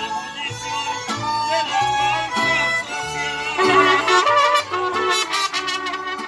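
A mariachi group playing: two violins carry the melody over the deep plucked bass notes of a guitarrón and the chords of a vihuela.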